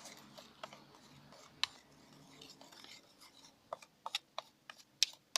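Faint, scattered clicks and small tacky smacks of shaving-foam slime being stirred in a bowl, with a cluster of sharper ticks in the last second and a half.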